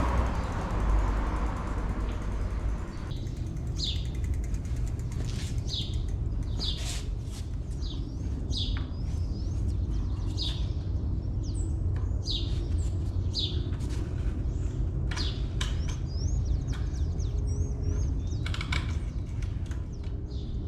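Birds calling: a run of short, clear downward-sweeping calls every second or two, beginning a few seconds in, with fainter rising chirps between them, over a steady low rumble.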